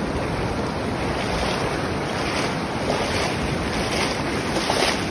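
Surf washing in and out over shallow water, with wind rumbling on the phone's microphone.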